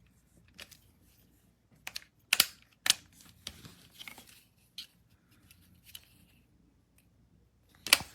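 Scattered clicks and knocks of small objects being handled, over a faint low hum; the sharpest come about two and a half and three seconds in, with another near the end.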